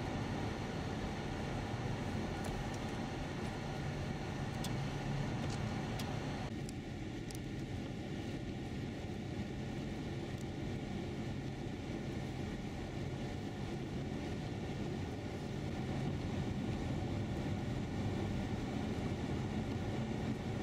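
Steady road noise of a car driving on a snow-covered highway, heard from inside the cabin: tyre and engine rumble. The sound changes abruptly about six and a half seconds in, and a few faint clicks come in the first half.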